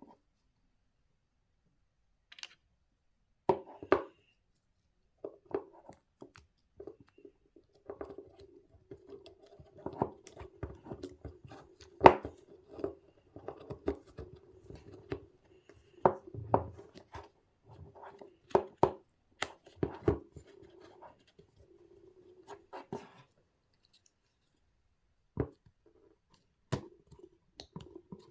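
Irregular clicks, taps and scraping of hard parts being handled and fitted by hand, with one louder knock about midway.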